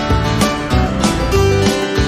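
Background music: strummed guitar over a steady beat.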